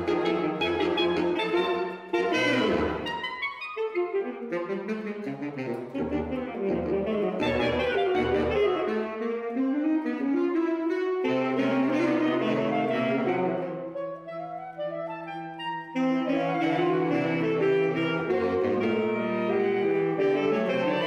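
Saxophone quartet of soprano, alto, tenor and baritone saxophones playing a rhythmic contemporary piece. About two seconds in there is a quick sweeping smear, then short repeated low notes; the texture thins briefly before all four come back in full.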